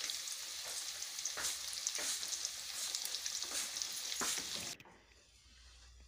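Stuffed bitter gourds sizzling in hot oil in a steel karahi, with scattered small pops; they are almost done frying. About five seconds in, the sizzle cuts off abruptly to near silence.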